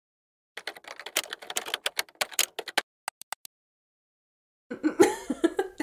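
Computer-keyboard typing sound effect: a rapid run of key clicks for about two seconds, then a few separate clicks. A woman's voice comes in near the end.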